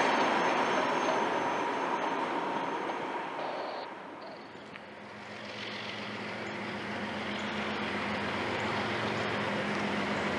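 Distant drone of an approaching CSX freight train's GE diesel locomotives, an ES40DC leading a C40-8W, growing slowly louder over the second half. It is preceded by a fading rush of broad noise in the first few seconds.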